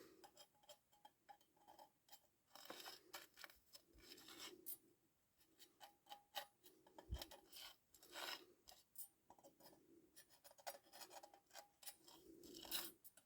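Faint, irregular scraping and light clicking as a thin metal feeler gauge is probed around the edge of a motorcycle clutch plate lying on a sheet of glass, checking the plate for warpage.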